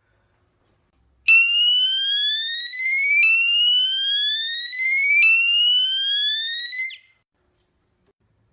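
Electronic fire alarm siren sounding its sweep tone: a shrill electronic tone that rises steadily in pitch over about two seconds, then drops back abruptly and rises again. Three sweeps sound, starting just over a second in and cutting off about seven seconds in.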